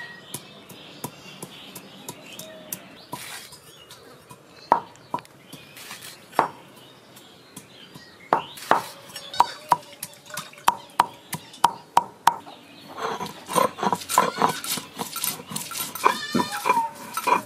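Hand food preparation with a stone pestle and grinding slab and a bonti blade: irregular knocks and taps, sparse at first and busier and more rhythmic in the second half. Animal calls come in near the end.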